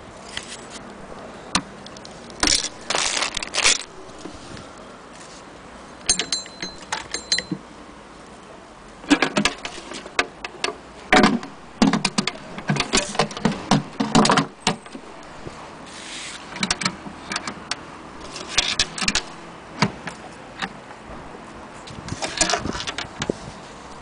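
Irregular clicks, knocks and rattles from handling the wooden bentwood case cover of a Singer 99k sewing machine and its handle, coming in short clusters with the busiest stretch in the middle.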